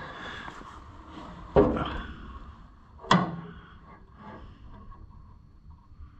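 Two sharp metallic knocks about a second and a half apart, amid faint clinking and handling of parts while a carburetor linkage is fitted on a John Deere B tractor.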